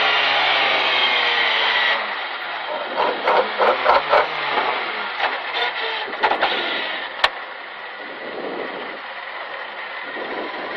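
Lada VFTS rally car's engine heard from inside the cockpit, slowing down: revs fall for about two seconds, then the level drops to a quieter stretch with a few uneven bursts of noise and a sharp click about seven seconds in, settling to low revs as the car rolls slowly.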